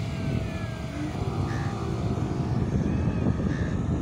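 Wind buffeting the microphone with the faint hum of the tow speedboat's engine, and a few short bird calls.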